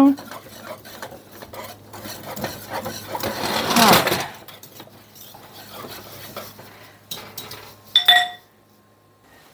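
Wire whisk beating thick cooked custard fast against a metal saucepan: a rapid scraping clatter that builds to its loudest about four seconds in, then eases off. It is the coconut cream pie filling being whisked to get the lumps out. Just after eight seconds comes a single short ringing metal clink.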